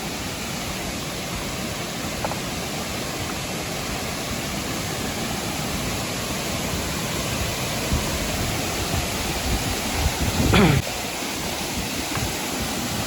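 Waterfall: a steady rush of falling water. A brief sliding pitched sound cuts in about ten seconds in.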